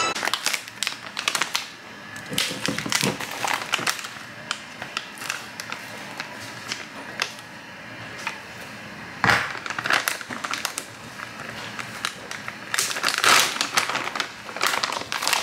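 Plastic packaging crinkling, with scattered clicks and knocks of containers being handled on a kitchen counter and a louder knock about nine seconds in.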